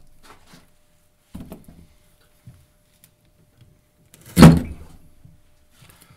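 A folding knife's blade chopped down hard: a light knock about a second and a half in, then one loud, sharp thunk about four and a half seconds in.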